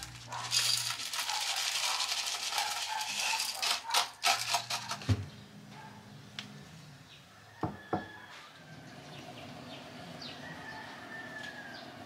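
Coarse gravel pouring from a plastic scoop into a plastic planter: a rattling hiss with a clatter of many small clicks during the first five seconds, ending in a dull thump. A few seconds later come two short knocks as a plant pot is set down on a wooden shelf.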